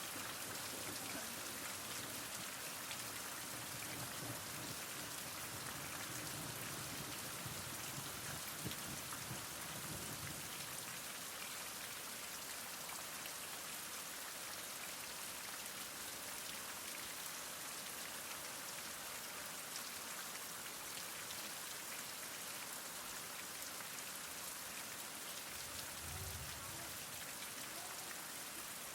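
Heavy rain falling steadily, an even hiss of countless drops, with faint low rumbles a few seconds in and again near the end.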